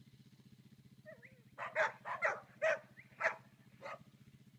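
A dog barking in a quick run of about seven sharp barks over a couple of seconds, over a steady low hum.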